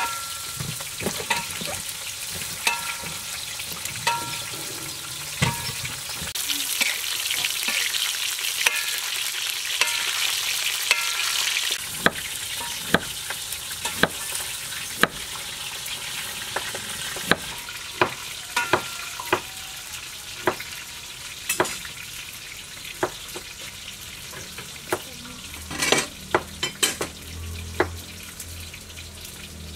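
Knife slicing fresh ginger on a wooden cutting board: a run of sharp taps, about one or two a second. Before the taps there is a few-second stretch of steady hissing.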